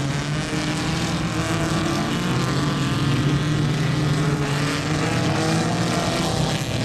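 Autocross race cars' engines running hard around a dirt track: a steady, loud engine drone whose pitch rises and falls slightly as the cars are driven.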